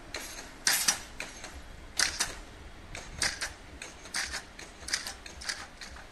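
Level-crossing road barrier with a hanging metal grille lowering and settling, its grille and arm clattering in a run of sharp metallic clicks, mostly in pairs about once a second, dying away near the end.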